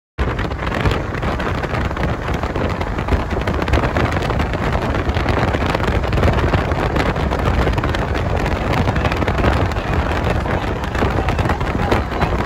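Steady road and wind noise from a moving car, with wind buffeting the microphone; it cuts in abruptly right at the start.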